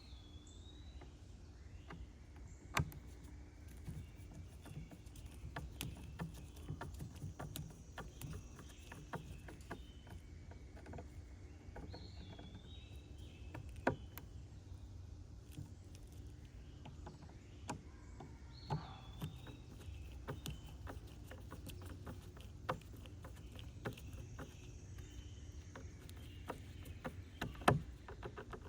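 A few short swooping bird chirps, near the start, about midway and about two-thirds of the way through, over scattered light clicks and taps and a faint steady hum.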